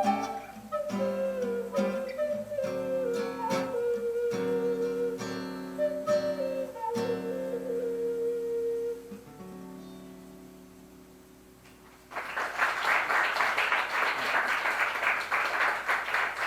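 Native American flute playing a slow, wavering melody over plucked acoustic guitar chords; the piece ends with a last held flute note and the guitar dying away. About 12 seconds in, the audience breaks into applause.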